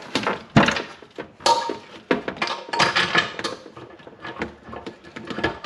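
Metal tap-socket tool on a long extension bar knocking and scraping against the tap fittings and pipework under a kitchen sink as it is pushed up towards the tap's fixing nut. A run of irregular clicks and knocks, with one heavier thunk about half a second in. The socket is failing to reach the fixing.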